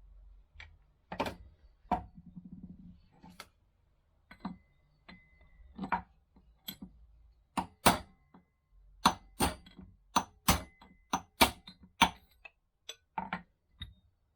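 Small metal motorcycle parts being handled and set down on a workbench: a long run of irregular sharp clicks and knocks, thickest in the second half, with a short scrape about two seconds in.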